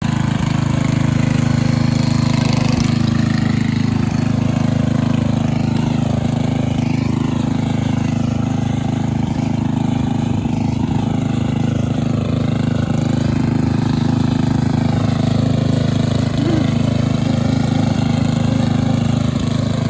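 A vehicle engine running steadily at an even speed, without revving.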